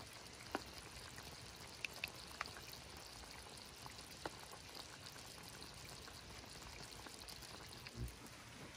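Ajillo bubbling in hot olive oil in a skillet: a soft steady sizzle with scattered sharp pops, and a dull thump near the end.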